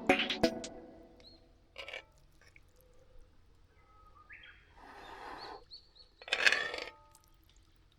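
Birds chirping outdoors: a few short high calls, with three brief noisy swells about two, five and six and a half seconds in. Background music fades out at the very start.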